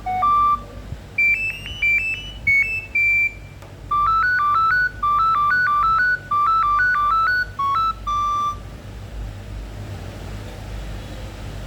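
A Nokia 7210 ringtone played through a Nokia 2760 mobile phone's speaker: a melody of short, high electronic notes in quick runs, with brief pauses between phrases. It stops about nine seconds in.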